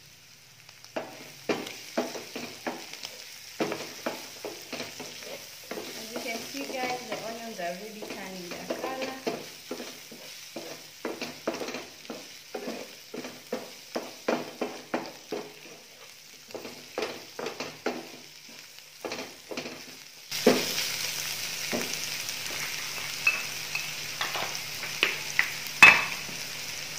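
Wooden spatula stirring and scraping beef and onions in a non-stick frying pan, with a sizzle under a stroke or knock about once or twice a second. About twenty seconds in the sizzling hiss gets louder and steadier, and near the end there is one sharp knock.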